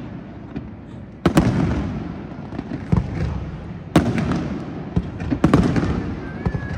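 Fireworks bursting: three loud bangs, about a second in, at four seconds and at five and a half seconds, each trailing off in a rumbling echo, with smaller pops between them.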